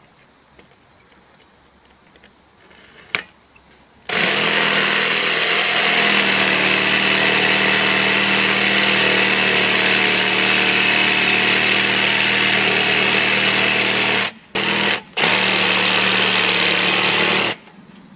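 A power tool starts about four seconds in and runs loud and steady at a constant pitch, cuts out twice briefly near the end, then runs again and stops. A single sharp click comes just before it starts.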